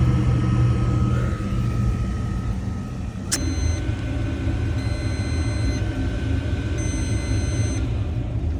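Rinnai tankless water heater running at high fire with a steady low rumble from its burner and combustion fan, easing about a second in, with a sharp click a little after three seconds and then two tones about a second long, two seconds apart. The heater keeps blowing its flame out at high fire, which the technician puts down to a venting issue.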